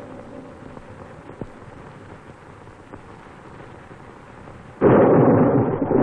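Thunderstorm sound effect on an old film soundtrack: a quiet hiss for most of it, then about five seconds in a sudden loud crash of thunder that carries on as a steady roar of storm noise.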